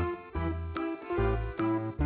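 Background music: a tune of short notes changing every fraction of a second over a low bass line.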